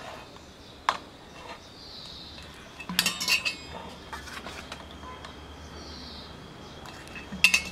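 A metal spoon clinking against a stainless-steel bowl and the rim of a glass pickling jar while flour-coated pork is scooped into the jar: a single clink about a second in, a quick cluster of clinks around three seconds in, and another sharp clink near the end.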